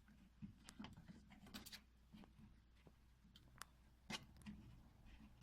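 Faint, scattered clicks and rustles of the plastic water-inlet hose fittings being handled and pushed into place on a washing machine, over a low room hum.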